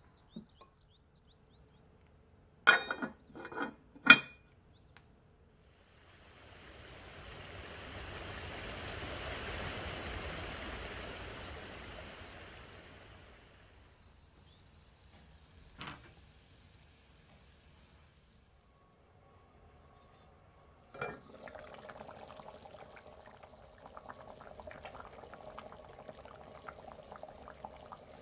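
A pot of tomato stew comes to a boil and bubbles steadily from about 21 s on. Earlier there are a few sharp clinks about 3–4 s in, then a soft hiss that swells and fades, and a single click near 16 s.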